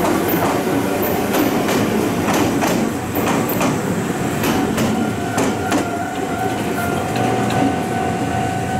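Ohmi Railway 100-series electric train (set 104F) pulling away from the platform, its wheels clacking over the rail joints in quick pairs over a steady running rumble. A steady high tone comes in about five seconds in.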